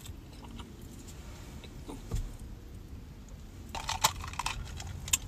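Low steady hum in a parked car with faint chewing and small handling noises. About four seconds in, a short burst of clicking and rattling as a plastic cup of iced drink is picked up.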